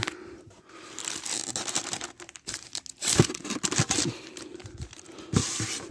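Clear plastic wrap around a ceiling fan motor crinkling as the motor is handled, in uneven crackles with a louder rustle near the end.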